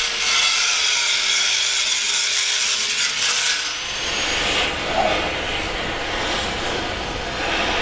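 Angle grinder grinding metal, a steady whine over a harsh hiss, for about the first four seconds; it then gives way to the steady hiss of an oxy-fuel gas torch flame heating a steel pipe.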